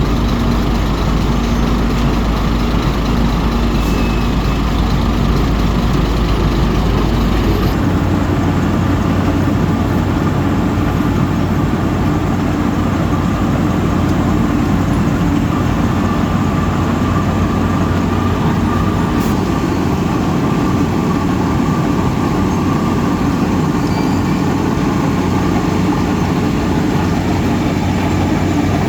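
Heavy diesel engine of an asphalt milling machine running steadily under load, with a dense grinding noise. The sound changes abruptly about eight seconds in.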